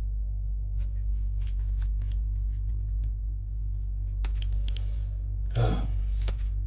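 Pokémon trading cards being handled and slid past one another: soft clicks and light rustles, with a louder swish about five and a half seconds in and another just after. A steady low hum runs underneath.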